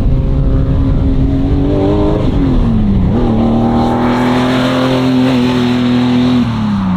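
1979 Ford Cortina Mark IV rally car's engine running hard at high revs. The pitch climbs slowly, dips sharply about two and a half seconds in, holds steady, then falls near the end.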